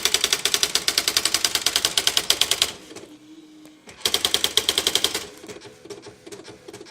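Smith Corona electronic dictionary typewriter printing, hammering out a rapid run of strikes at about ten a second. About three seconds in it pauses briefly with a low hum. Then comes a second fast run, and it trails off into softer, scattered ticks.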